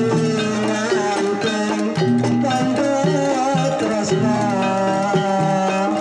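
Javanese gamelan ensemble playing: bronze metallophone keys and kettle gongs struck in a steady pattern, with many ringing tones layered together and a wavering melodic line above them.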